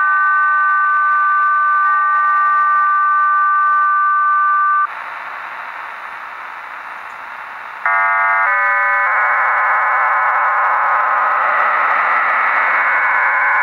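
Shortwave radio reception of the HM01 numbers station's digital data signal: a chord of steady electronic tones for about five seconds, then a few seconds of plain static, then a stepped run of tones opening into a dense, buzzing band of many tones at once.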